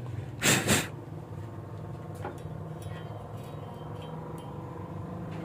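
Steady low electrical hum from a stick welding machine standing by between welds. About half a second in there are two short, loud bursts of noise close together.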